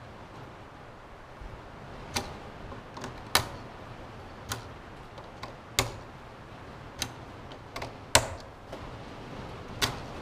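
A series of short, sharp clicks and knocks at irregular intervals, roughly one a second, over a quiet background.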